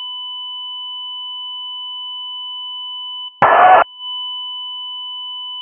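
Mock Emergency Alert System attention tone: a steady electronic tone sounding two pitches at once. It breaks off about three and a half seconds in for a brief burst of harsh noise, then carries on.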